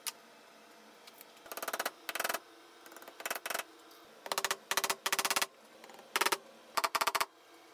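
Cordless impact driver driving screws into a pine board in about ten short bursts of rapid hammering, with brief pauses between bursts.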